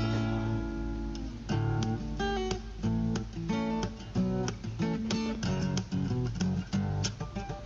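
Acoustic guitar played fingerstyle: a steady run of plucked notes and chords.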